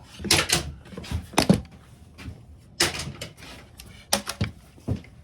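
A series of irregular knocks and clunks as tools and pieces are handled and set down during a table-leg repair.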